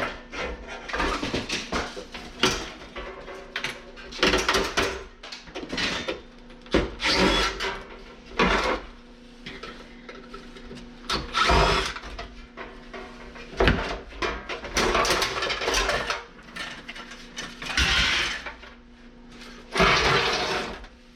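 Power tool run in repeated short bursts of a second or two each, with metal rattling between them, as fasteners are taken out of an air conditioner to free its compressor.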